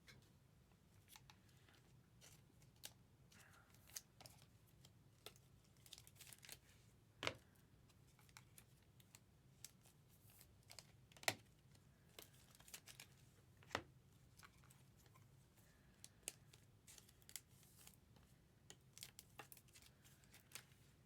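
Faint handling of trading cards: scattered light clicks and rustles of cards being shuffled and slid, with a few sharper taps, over a faint low hum.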